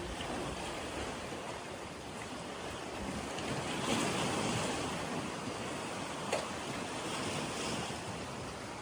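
Steady wash of rain falling on lake water, swelling briefly about four seconds in, with a single sharp tap a little after six seconds.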